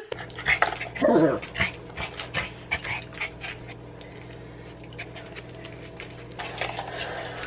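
Small pet dogs being leashed up: one dog gives a falling whine about a second in, amid light clicks and rattles of leash and harness handling.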